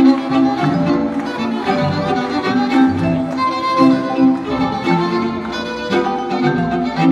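String quintet playing live, with bowed violins carrying the line over lower strings in sustained notes and chords that move on about once a second.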